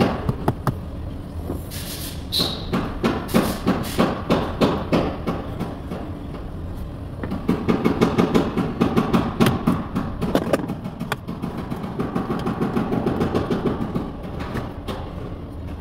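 Plastic interior door trim panel of a Toyota Highlander being pried and pulled loose with a hand tool: a long run of clicks, knocks and plastic rattles. The clatter grows denser and louder about halfway through.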